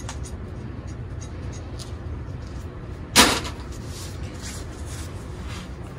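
Porsche Macan's 2.0-litre turbocharged four-cylinder engine idling with a steady low rumble and faint light ticking. A single loud, sharp knock comes about three seconds in.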